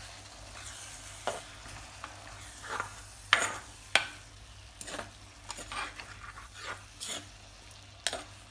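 A spoon or spatula stirring and scraping through a pan of anchovies and grated coconut, with irregular sharp clinks against the pan over a faint sizzle. The mix is being turned so it does not stick to the pan as its water cooks off.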